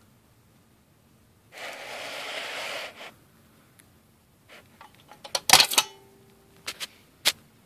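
Vintage tin toy slot-machine dime bank being worked: a steady rasping rustle for about a second and a half, then a quickening run of mechanical clicks from the handle and reels. The reels land on jackpot and a dime clatters out with a brief metallic ring. A few more clicks follow near the end.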